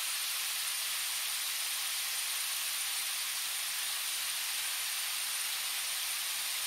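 A steady, even hiss with a faint, constant high-pitched whine, unchanging throughout.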